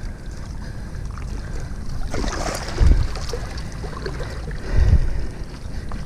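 Wind buffeting the microphone over waves washing against a rocky shore. A rush of noise comes about two seconds in, and two heavy low thumps follow near three and five seconds.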